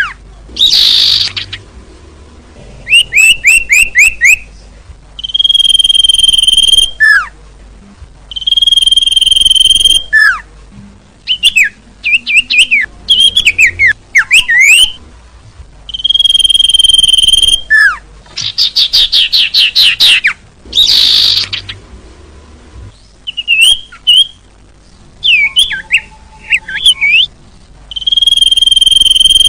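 Bird lure call recording: loud, repeated songbird calls. Steady whistled notes about a second and a half long alternate with fast trills, quick down-slurred notes and a few dense bursts of chirping.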